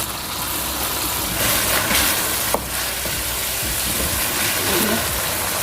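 Ground beef with garlic frying in oil and ghee in a pot, sizzling steadily, with a single sharp click about two and a half seconds in.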